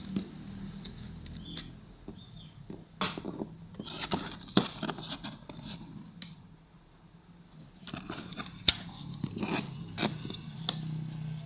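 Irregular small clicks, taps and scrapes of hand tools and components being worked on an LED TV's circuit board during a capacitor replacement, over a faint low hum.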